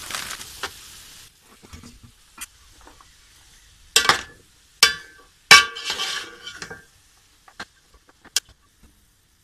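Vegetables sizzling in an aluminium pot over high heat, the sizzle stopping abruptly about a second in. Then a metal spoon scrapes and knocks against the pot as shredded cabbage is stirred through the vegetables: several loud clanks and scrapes in the middle, and two small clinks near the end.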